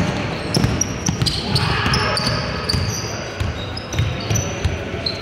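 A basketball being dribbled on an indoor court floor, a run of bounces, with short high sneaker squeaks on the court and players' voices in the background.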